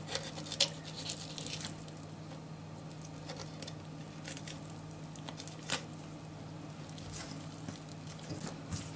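A kitchen knife slicing raw nutria meat away from the hip and thigh bone: quiet wet squishing and tearing, with a few scattered light clicks from the blade, over a steady low hum.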